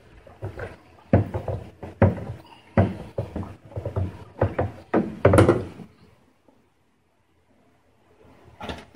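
Long spoon stirring honey must in a 5-gallon plastic fermenting bucket: the liquid sloshes and the spoon knocks against the bucket wall about twice a second. The stirring stops about six seconds in, and there is one more short knock near the end.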